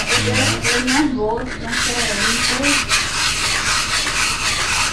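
Sandpaper rubbed back and forth by hand inside the bore of a Yamaha YBR Factor 125 cylinder sleeve, in quick repeated rasping strokes with a short pause about a second in. The light sanding seats the scratch marks left by the machine shop's reboring.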